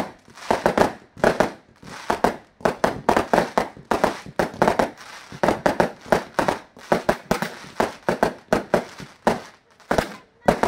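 Aerial fireworks bursting in quick, irregular succession: several sharp bangs a second, overlapping one another, with only brief lulls.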